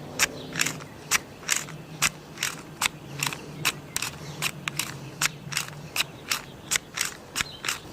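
Quick crunching footsteps on rough ground, about two and a half steps a second, over a low steady hum.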